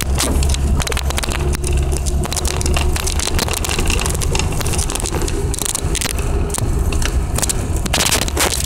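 Lada 2107 driving over a rough dirt track, heard from inside the cabin: a steady low engine drone with frequent knocks, clicks and rattles from the bumpy ground.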